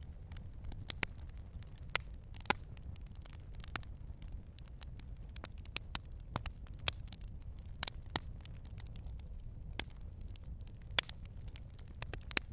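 Wood fire crackling inside a Pomoly T1 Ultra titanium tent stove: irregular sharp pops and snaps over a steady low rumble.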